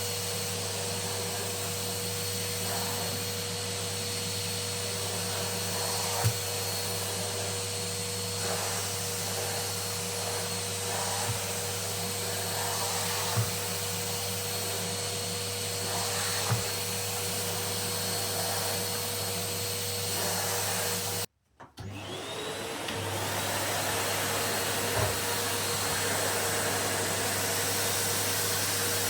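Numatic cylinder vacuum cleaner running steadily with a steady whine, with a few light knocks from the floor tool. About two-thirds of the way through, the sound cuts out abruptly. A vacuum motor then starts up, its whine rising as it comes up to speed.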